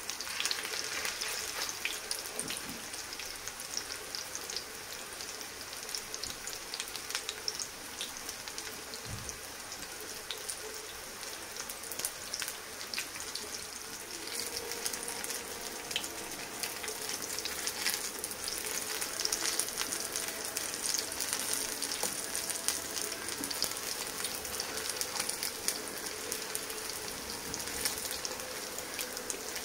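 Semolina and vegetable patties shallow-frying in hot oil in a pan: a steady sizzle with scattered small crackles and pops.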